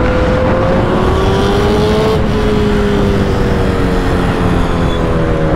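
Motorcycle running at about 100 km/h, heard from the rider's seat. Its engine note holds steady and slowly falls as the throttle eases, under a loud rush of wind.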